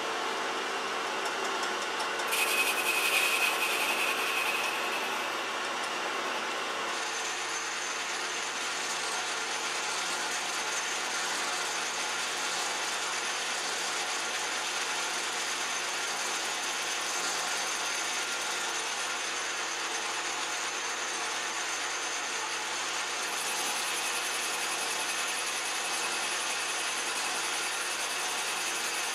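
Metal lathe running and turning a Poco graphite rod, a steady machining noise with a thin whine over it. It is louder for a few seconds near the start.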